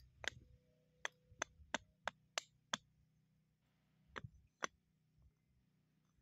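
A series of sharp metallic taps with a short ringing note after them: one tap, then six quick ones about three a second, then two more a little later.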